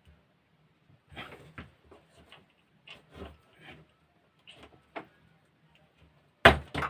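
Scattered clicks and knocks of small parts being handled during reassembly of a battery sprayer's pump motor, with a louder double knock near the end.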